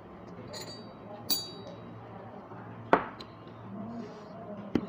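Tableware clinking twice with a brief ring, then two sharp knocks, the louder one about three seconds in, as a plastic sauce bottle is picked up and handled at the table.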